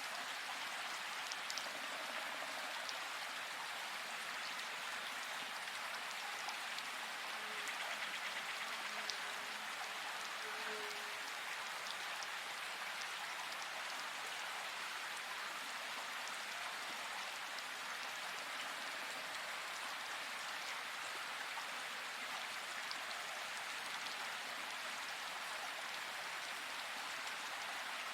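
Steady hiss of rain or running water, even throughout, with a few faint ticks on top.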